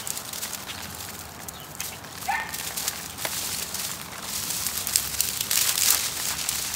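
Dry arugula seed stalks being shaken and beaten over a plastic sheet: brittle seed pods crackle and rustle as they split, and the plastic sheet crinkles. The rustling grows busier and louder about five seconds in.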